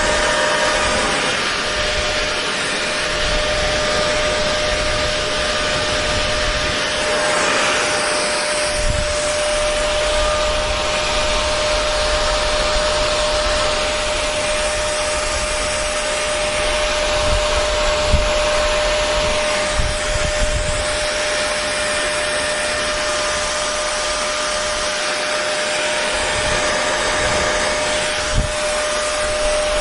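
Electric hair dryer running steadily: an even rush of blown air with a steady motor whine, and a few soft low knocks.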